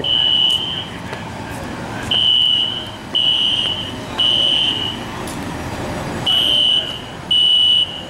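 Building fire alarm sounding a high-pitched beep in the temporal-three evacuation pattern: three beeps about a second apart, a pause, then three more.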